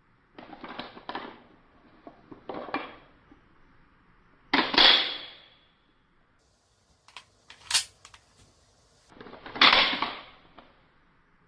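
WE P08 gas blowback airsoft pistol: two loud shots about five seconds apart, each trailing off over about a second. Softer clacks and sharp metallic clicks come between them.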